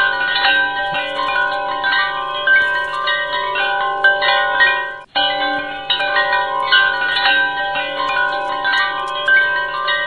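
Background music of ringing, chime-like bell tones overlapping one another. The track breaks off for an instant about five seconds in and starts over, as a short repeating loop.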